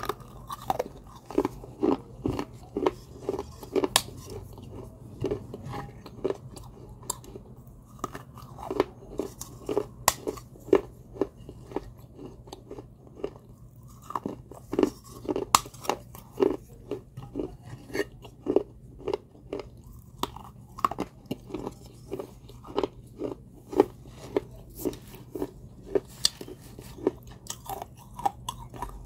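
Close-up chewing of fired terracotta clay pottery: crisp crunches about twice a second as bitten-off pieces of an unglazed clay cup are ground between the teeth, with two short pauses.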